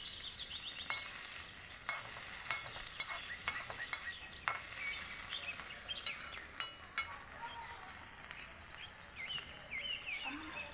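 Tomatoes, shallots, garlic and red chillies sizzling in oil in a tiny iron kadai, with a steady hiss and scattered sharp clicks as the pan is stirred.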